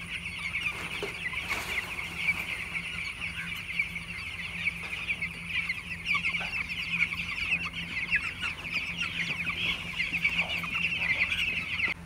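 A flock of broiler chicks peeping continuously, many short high cheeps overlapping in a dense chorus, as they crowd round a feeder pan to eat. A steady low hum runs underneath.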